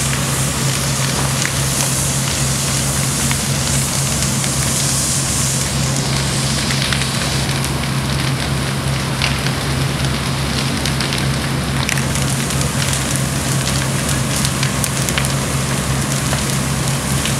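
House fire burning fully involved, with constant crackling and popping, over the steady low drone of fire engines running.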